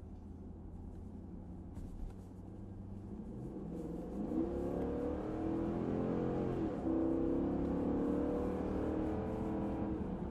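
2018 Dodge Durango R/T's 5.7-litre HEMI V8 with stock exhaust, running low and steady, then accelerating from about three seconds in. Its pitch and loudness rise, drop briefly with a gear change near seven seconds, then hold strong.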